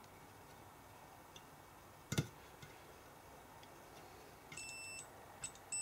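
Digital multimeter's continuity buzzer giving two steady high-pitched beeps near the end as the probes touch alternator stator winding leads that are connected to each other. A single click comes about two seconds in.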